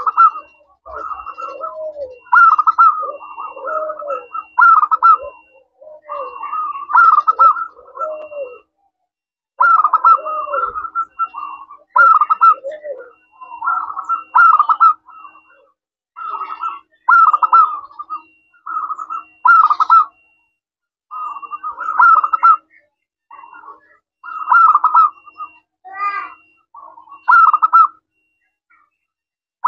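Zebra dove (perkutut) cooing its staccato song over and over: phrases of quick rolling notes a second or two long, separated by short pauses.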